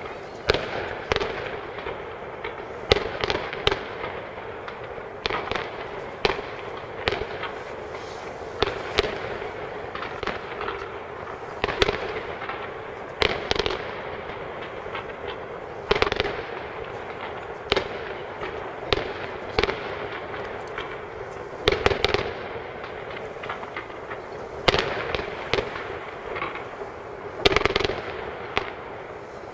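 Aerial firework shells bursting: sharp bangs every second or two, some in quick pairs, over a steady background hiss.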